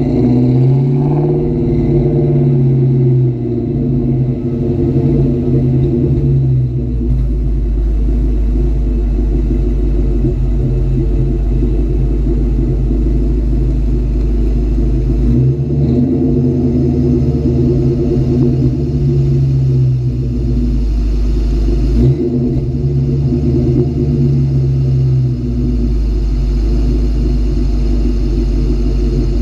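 2004 Ford Mustang GT's 4.6-litre V8 running on the move, its pitch rising and falling several times, with a deep rumble underneath that comes and goes.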